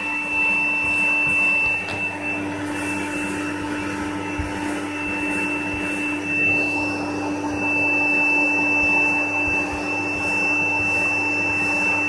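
Vacuum cleaner running steadily: a high motor whine over the rush of air sucked through its hose into a homemade plastic-box cyclone separator.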